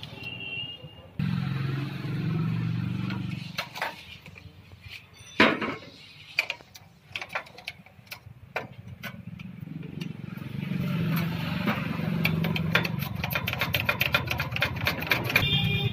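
Sharp metallic clicks and clinks of hand tools and parts being worked on a Massey Ferguson 241 tractor's brake pedal linkage, coming fast and close together near the end. A low steady hum runs under the start and the second half.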